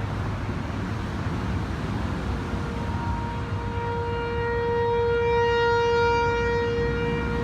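ASC T-128 outdoor tornado warning siren, a few blocks off, sounding one steady tone with no rise or fall in pitch. It swells louder from about three seconds in, peaks a few seconds later and eases slightly near the end, over a low background rumble.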